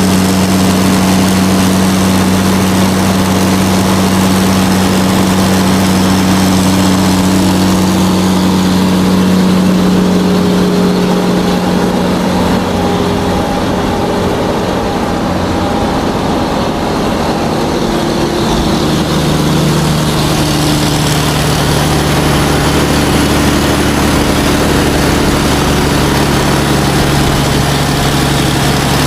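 Large truck's engine running steadily under way. The engine note drops to a lower pitch about two-thirds of the way through and then holds.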